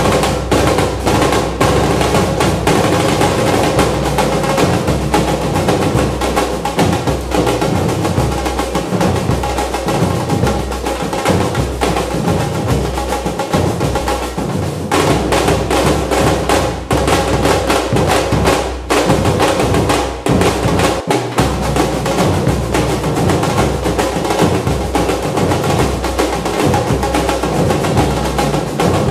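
Percussive music: continuous, dense drumming with snare-drum rolls and low bass-drum beats over a steady sustained tone.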